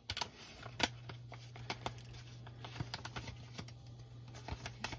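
Paper envelope rustling and crinkling as a tightly packed envelope is worked open by hand: irregular small clicks and crackles, the sharpest a little under a second in. A low steady hum runs under it from about half a second in.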